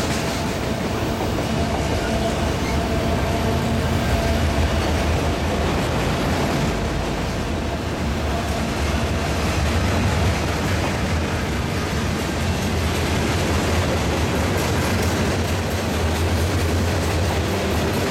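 Norfolk Southern freight train rolling past on the rails, a steady low noise of wheels and cars.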